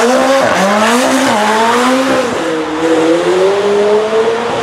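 Supercar engine revving hard at the start of a hill run. Its pitch climbs and falls back sharply three times, then rises slowly and steadily, with tyre squeal as the rear wheels spin up tyre smoke.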